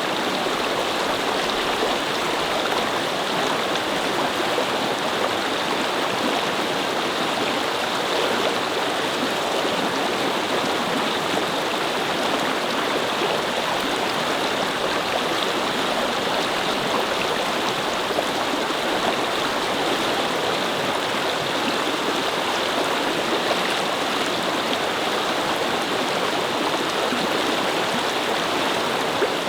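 Small brook babbling over rocks: a steady, even rush of flowing water.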